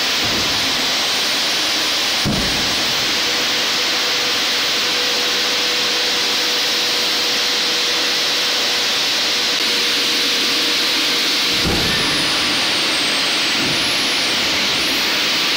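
Boeing 747-400's air-driven hydraulic pumps running hard on ground pneumatic air during a landing gear retraction test: a loud, steady rushing hiss with a steady hum under it. Two dull thumps, about two seconds in and again near twelve seconds.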